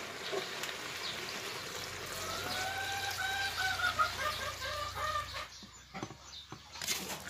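Coconut milk pouring from a stainless steel bowl onto string beans and squash in a wide metal pan, a steady pour that stops about five seconds in. A rooster crows in the background, one long call starting about two seconds in, and a few knocks follow near the end.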